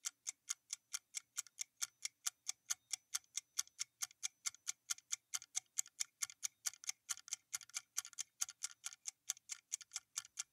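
Ticking-clock sound effect counting down a quiz timer: an even run of sharp ticks, about four a second.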